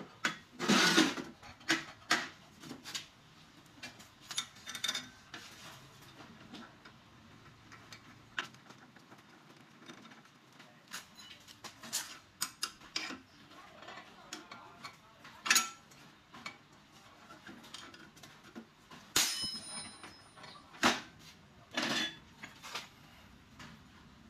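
Irregular clinks, knocks and taps of steel parts being handled as an angle grinder is seated in a steel angle-iron cut-off stand and short lengths of angle iron are set against it. A few knocks are louder, and one late on rings briefly.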